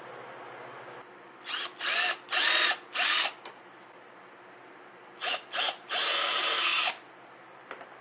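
Electric drill with a 1/16-inch bit drilling pilot holes through aluminium flashing into plywood, each run spinning up and winding down. There are four short bursts, a pause, then two short bursts and a longer run of about a second.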